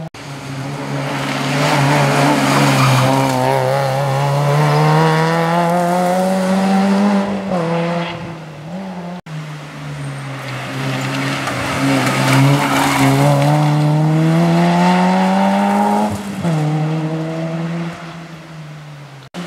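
Two rally car engines at full throttle, one after the other. In each pass the engine note climbs steadily for several seconds, then drops sharply as the driver lifts off for the corner.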